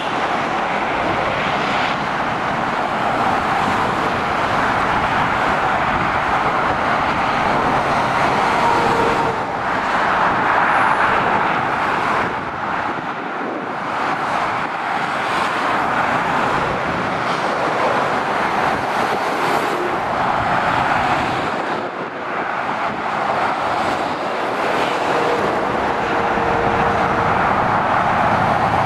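Motorway traffic passing: cars and lorries driving by in a continuous rush of tyre and engine noise that swells and eases as vehicles pass.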